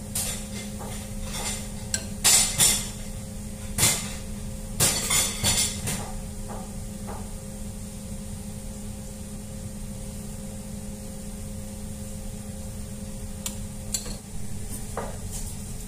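Metal spoon clinking and scraping against a bowl and a metal sheet pan as garlic butter is spread onto bread: a cluster of clinks in the first six seconds, a few more near the end, over a steady low hum.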